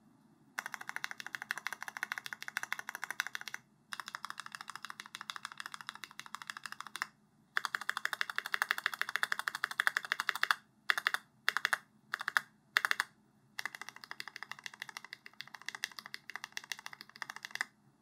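Typing on a mechanical keyboard with lubed JWICK Aloe 67 g tactile switches on an aluminium plate under GMK keycaps: fast runs of key clacks a few seconds long, broken by short pauses. About two-thirds of the way through, four short quick flurries come in a row.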